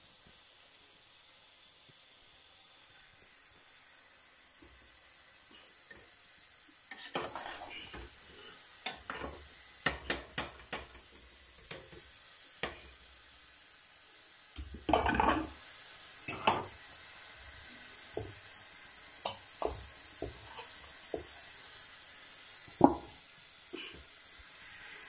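Metal spatula scraping and knocking against an aluminium pot as rice is stirred, over a steady high hiss. The first several seconds hold only the hiss; the scrapes cluster in the middle, and a single sharp knock near the end is the loudest.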